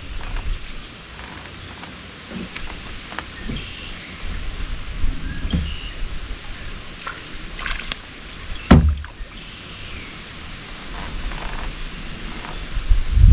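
Low steady outdoor background on a small fishing boat, with scattered light knocks and handling noises from the rod and boat as a bream is hooked and reeled in, and one sharp knock about two-thirds of the way through.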